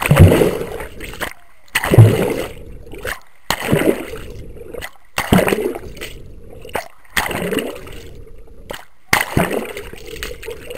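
Water splashing and sloshing around a camera held under water, in six regular surges about every two seconds, each starting sharply and fading.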